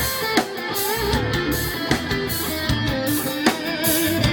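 Live band playing an R&B number, with electric guitar, bass and a steady drum beat.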